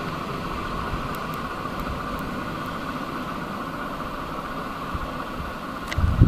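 Diesel engine of a Czech class 810 railbus running steadily as the railcar moves off along the track, with a few low thumps near the end.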